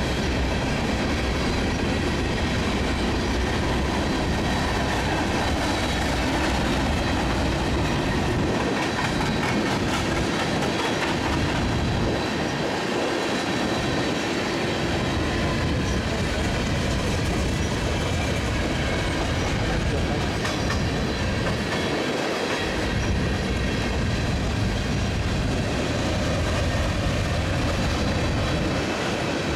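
Freight train hopper cars rolling past at close range: steel wheels running on the rails with a steady, unbroken noise of wheel and rail.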